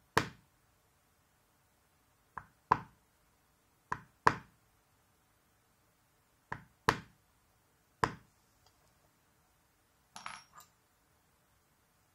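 Maul striking a metal beveler stamp on tooling leather during clean-up beveling: eight sharp knocks, mostly in pairs of a light tap followed by a harder blow, a pair every second and a half or so. Near the end comes a short cluster of lighter clicks and clinks.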